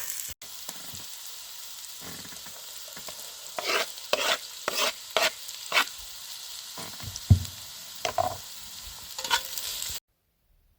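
Food sizzling in a frying pan while a utensil stirs and scrapes it in several short strokes, with one low knock against the pan. The sound cuts off abruptly near the end.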